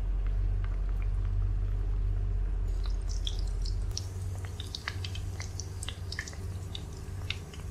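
Dough discs frying in hot oil in a wok: the oil sizzles with scattered small pops and crackles, which grow busier about three seconds in. A steady low hum runs underneath and eases about four seconds in.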